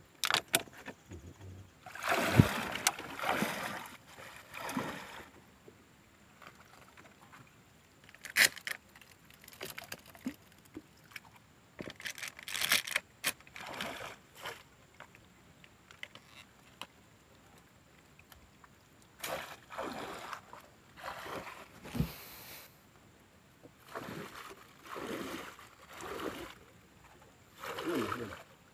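Water splashing and sloshing around a small wooden boat as it is moved through swamp water, in irregular surges a second or so long, a few seconds apart, with a few light knocks.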